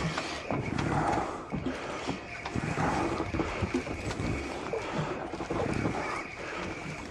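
Wind buffeting the microphone over the sound of a small boat rocking on the sea, with scattered knocks and a faint steady high whine.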